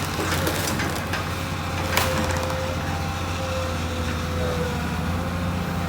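Komatsu PC200 excavator's diesel engine running steadily with a steady whine over it, while wood cracks and splinters in a few sharp snaps, the loudest about two seconds in, as the machine breaks a tree.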